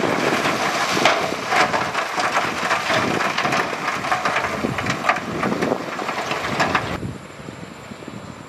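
Loose rock clattering and crunching as heavy earthmoving machinery moves it, a dense run of knocks over a machine rumble. It stops abruptly about seven seconds in, leaving a lower, steady machine drone.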